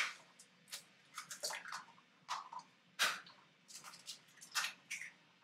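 Two eggs cracked against the rim of a jug and emptied into liquid egg whites: a sharp crack right at the start and another about three seconds in, with small clicks of shell and wet drips between them.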